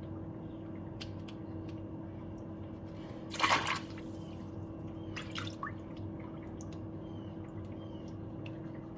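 Water dripping and splashing in a filled sink, with a few small clicks and the loudest splash about three and a half seconds in.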